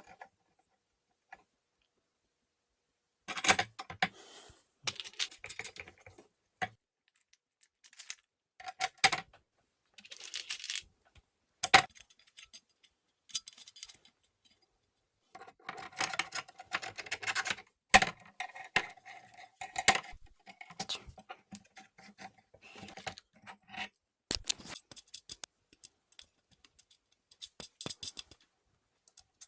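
Small metal parts and tools clinking and rattling in irregular spurts of sharp clicks, with short silent gaps between them, as hardware such as screws is handled.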